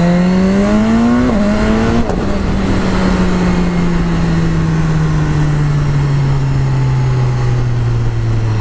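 BMW S1000R's inline-four engine under acceleration, pitch rising with a quick upshift about a second in. About two seconds in the throttle is eased and the engine note sinks slowly as the bike slows. Wind rush underneath.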